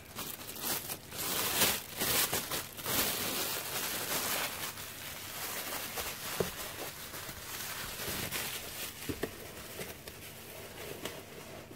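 Plastic bubble wrap and packaging crinkling and rustling as it is handled. The crackle is louder in the first few seconds and softer after.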